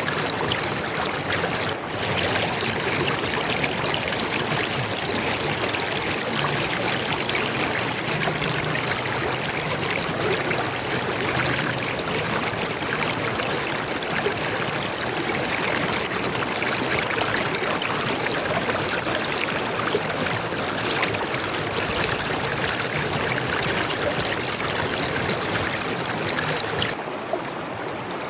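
A stream of water running steadily, a continuous even rush with no single splashes standing out. Near the end it drops to a slightly softer, duller flow.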